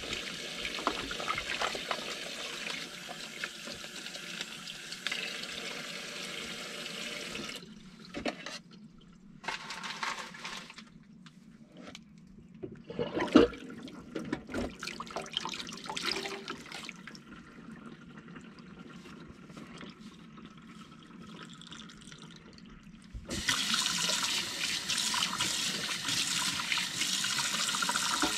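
Kitchen faucet running into the sink during dishwashing. About seven seconds in the water stops, leaving quieter scrubbing with knocks and clinks of dishes, one sharp knock among them, and for the last five seconds the tap runs again, louder.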